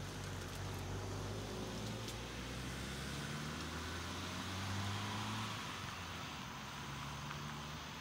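Hatchback car's engine running low as it pulls away and drives off down the street, a faint hum that swells about five seconds in and then eases off.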